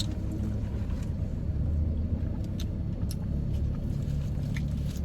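Steady low rumble of a car, with a few faint clicks.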